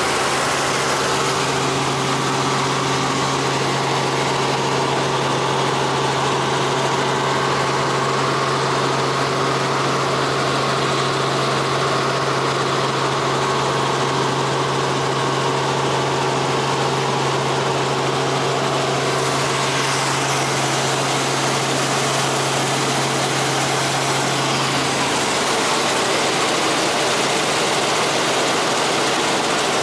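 Steady drone of a light helicopter's engine and rotor in flight, heard from inside the cabin with wind noise. A low steady hum drops out near the end.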